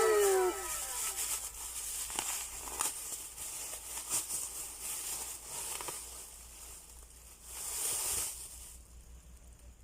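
Gift wrapping being torn open and crumpled: irregular crinkling and rustling with sharp little crackles, dying down near the end.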